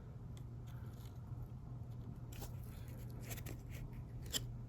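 Faint clicks and soft rustles of trading cards being handled and shuffled to the next card, over a low steady hum.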